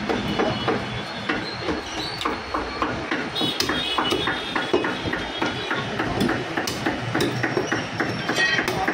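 Butcher's cleaver chopping goat meat on a wooden block, a fast, uneven run of knocks.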